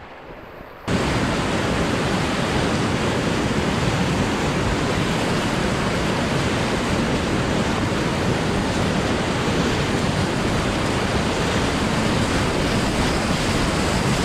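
Loud, steady rush of a whitewater rapid around a kayak running it, heard close from the boat. The sound is muffled for the first second, then jumps abruptly to full loudness.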